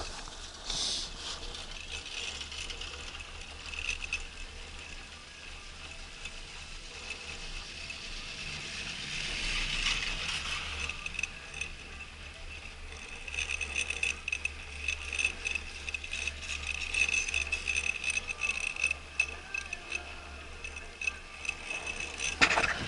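Chairlift running during a ride: a mechanical rattle with a steady high tone that grows stronger about halfway through, over a low wind rumble on the microphone.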